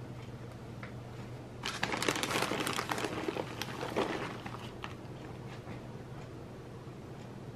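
Plastic bag of shredded mozzarella crinkling and rustling for about two and a half seconds, starting about two seconds in, as handfuls of cheese are taken from it. A faint steady hum lies underneath.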